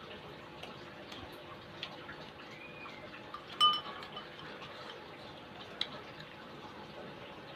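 A spoon clinks sharply against a bowl about three and a half seconds in, leaving a brief ringing tone, with a smaller clink near the end and faint small clicks of eating in between.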